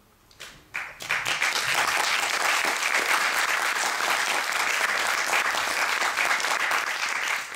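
Audience applauding. A few scattered claps start it, then steady applause builds about a second in and holds for several seconds before tailing off near the end.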